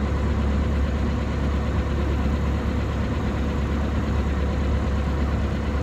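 Diamond DA40's piston engine and propeller running steadily at low power, a constant deep drone heard from inside the cockpit.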